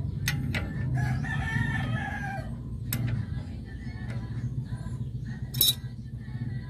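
A rooster crows once, a call of about a second and a half starting about a second in, over a steady low hum. Sharp metal clinks come from the wrench and brake parts being handled, the loudest a ringing clink near the end.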